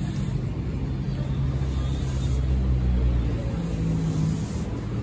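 Street traffic: a motor vehicle's engine running close by, low and steady, getting a little louder around the middle.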